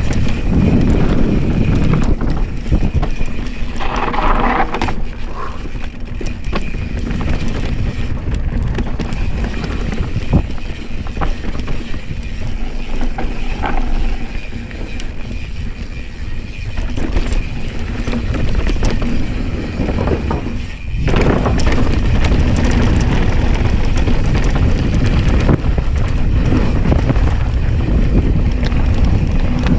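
2020 Specialized S-Works Enduro mountain bike riding fast down a dirt trail: steady wind noise on the microphone and tyre noise on the dirt, with frequent knocks and rattles from the bike over rough ground. The noise gets louder about two-thirds of the way through.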